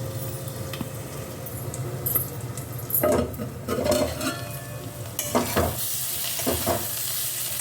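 Spiced taro stolons (kochur loti) frying in a pan in their own juice, with a steady sizzle and a few sharp metal clinks against the pan; the sizzle grows louder about five seconds in.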